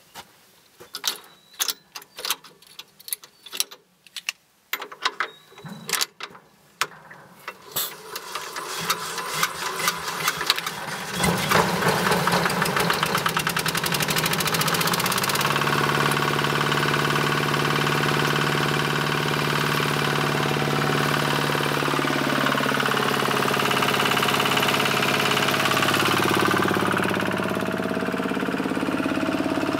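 Small stationary engine on a bore's pump set being started. Handling clicks and knocks come first, then the engine catches about eleven seconds in and runs loudly, settling into a steady running speed a few seconds later.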